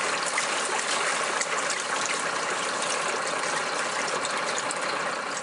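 Water running and splashing down a drain pipe into a U-bend, flowing freely now that the blockage of grit and gravel has been cleared.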